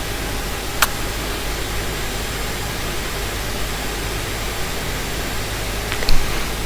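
Steady whirring hiss of a fischertechnik monorail carriage's small motor and propeller running, with a sharp click about a second in and a brief knock near the end.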